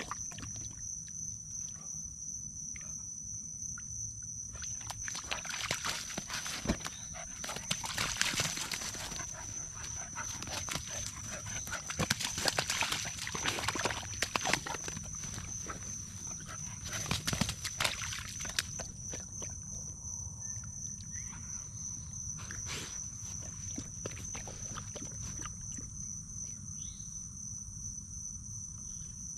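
A puppy splashing and pawing in a shallow muddy puddle, in bouts of splashing with quieter stretches in between.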